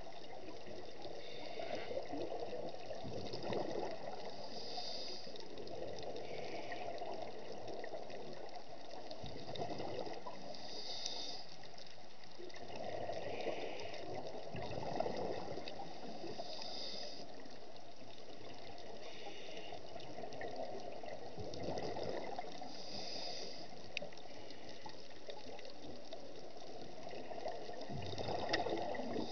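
Scuba diver breathing through a regulator underwater: a short hiss on each inhale and a gurgle of exhaled bubbles, repeating about every six seconds.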